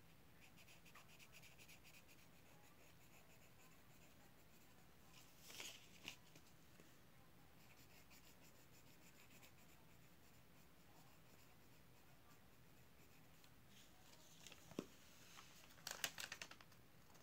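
Near silence with faint scratching of writing on paper. There are brief paper rustles and clicks about six seconds in and again near the end, the loudest of them near the end.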